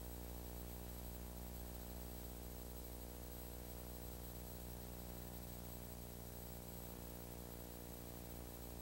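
Faint, steady electrical mains hum with a stack of overtones, under an even hiss of videotape noise. There is no programme sound yet.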